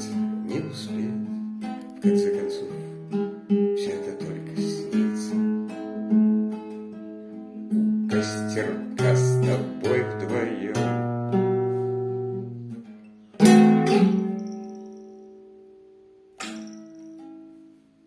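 Acoustic guitar playing an instrumental passage of picked notes and chords, with low bass notes under the melody. About three-quarters of the way through comes a loud strummed chord that rings down slowly, then one softer chord.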